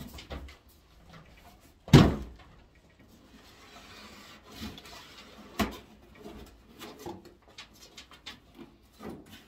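Cardboard shipping boxes holding pigeons being handled and opened: scattered scrapes and clicks, with two sharp thumps, one about two seconds in and another a little past five and a half seconds.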